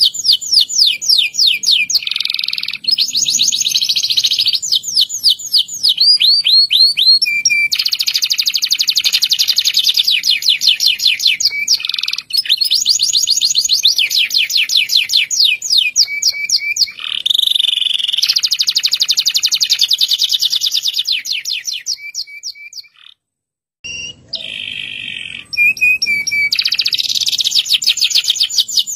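Local Indonesian canary (kenari lokal) singing a long rolling song of rapid high trills, switching from one trill to the next every second or two. It breaks off briefly about two-thirds of the way through, then carries on.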